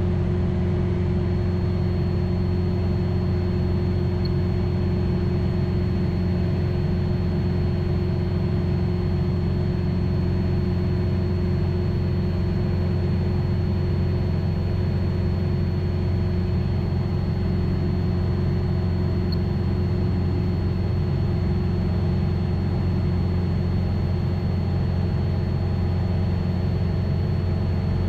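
Light aircraft's piston engine and propeller running steadily in flight: an even, unchanging drone.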